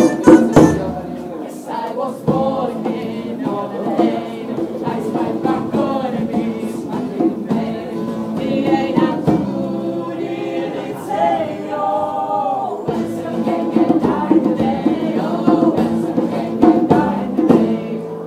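Several voices singing a song together, choir-style, with long held notes.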